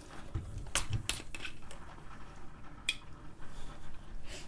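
Small eating and handling noises at a table: a few sharp clicks and soft knocks, mostly in the first half, as pickles, sauce bottles and snack packs are handled.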